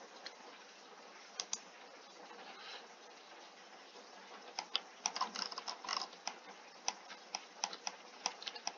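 Computer keyboard and mouse being clicked, faint: a couple of isolated taps, then a dense run of quick clicks from about halfway through.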